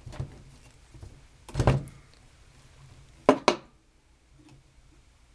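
Hand wire cutters or strippers working on the thin wires of an audio cord: a heavier handling knock about one and a half seconds in, then two sharp snips in quick succession about three seconds in, as the wire ends are trimmed.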